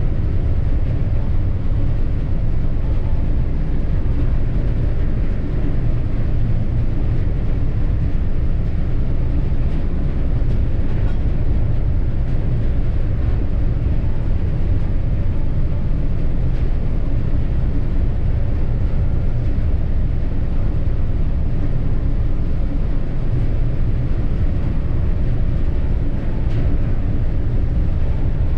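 Steady low rumble on the deck of a ship under way, from its engines and the wind, with no break.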